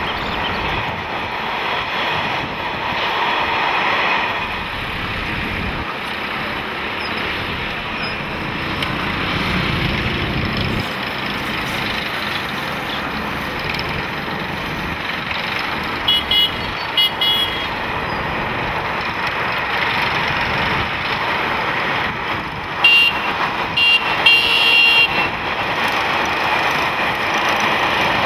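Steady road traffic noise, with vehicle horns tooting in short beeps a little past halfway through and again in a second cluster later on.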